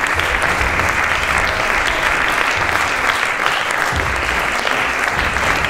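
Theatre audience clapping steadily.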